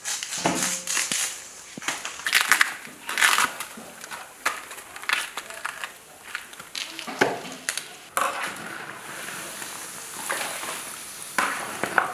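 Husks being torn by hand from fresh bitter bamboo shoots: a run of irregular crisp tearing and cracking sounds. A steady hiss comes in from about eight seconds in.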